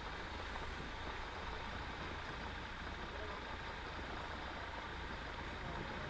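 Steady outdoor background noise: an even hiss over a low rumble, with no distinct event.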